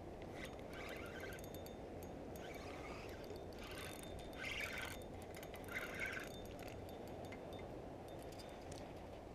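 Spinning fishing reel being cranked in short spurts while a fish is played on the line, over a steady low background rush.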